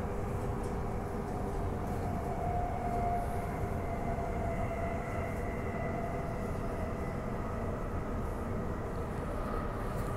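Transperth B-series electric multiple-unit train running steadily along the line: a constant rumble with a faint whine that drifts slowly in pitch.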